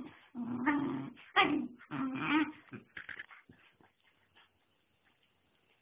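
Airedale Terrier puppy whining: about three drawn-out, wavering whines in the first couple of seconds, then a few short faint whimpers.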